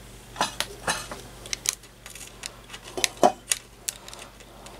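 Scattered sharp metallic clicks and clinks, about eight, the loudest about three seconds in: small metal parts and tools being handled on a tube-amp's steel chassis.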